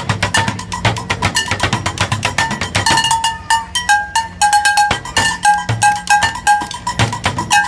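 Street drumming with drumsticks on upturned plastic water-cooler jugs, wooden bar-stool seats and metal dog pans, in a fast, dense rhythm: low thumps from the jugs under ringing, pitched clangs from the pans.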